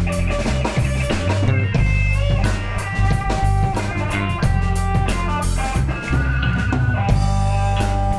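Live rock trio playing an instrumental passage: guitar holding and bending notes over bass guitar and drum kit.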